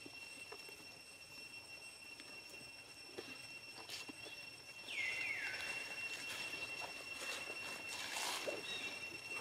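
Forest ambience with a steady, high insect drone. About halfway through come two short high calls that slide down in pitch, then scattered rustling and clicks and one more brief high call near the end.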